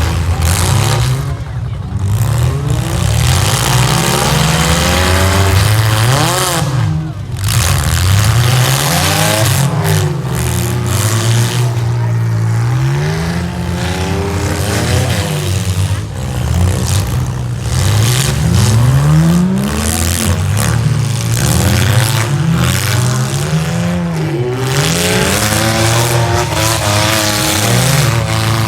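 Demolition derby cars' engines revving hard, pitch climbing and falling over and over as the cars accelerate and ease off.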